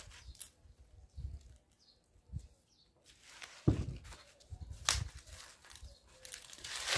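Fresh green corn husks being pulled and torn off the ears by hand: rustling and a few sharp rips, after a quieter first second or two, the loudest about halfway through and another near the end.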